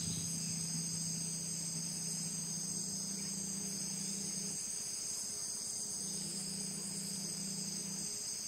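Steady chorus of insects, a continuous high-pitched drone of crickets or similar insects from the creek-side vegetation. Beneath it runs a low steady hum that cuts out about halfway through, returns for a couple of seconds and stops again shortly before the end.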